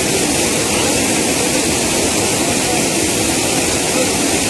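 Waterfall in flood: a loud, steady rush of white water pouring over a rock ledge and churning below.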